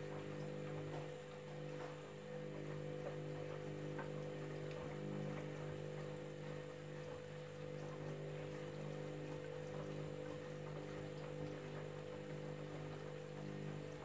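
Candy front-loading washing machine running mid-cycle: a steady electrical hum, with faint water noise and light ticks from the drum.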